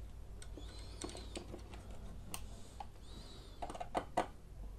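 Light clicks and taps of a screwdriver and stripped wires at the small screw terminals of an LED dimmer as the strip's leads are fitted. The clicks are scattered and faint, with a few sharper ones near the end.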